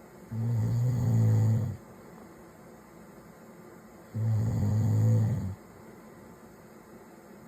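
A man snoring in his sleep: two low-pitched snores, each about a second and a half long, about four seconds apart.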